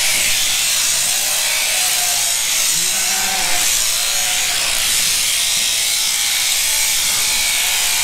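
Electric sheep-shearing handpiece running steadily as a ewe is shorn, with sheep bleating several times in the background, most clearly about three seconds in.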